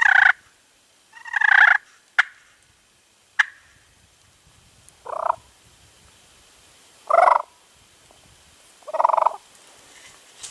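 Wild turkey gobbler gobbling repeatedly, five gobbles in all, one to two seconds apart, the later three lower in pitch than the first two. Two sharp clicks come between the second and third gobbles.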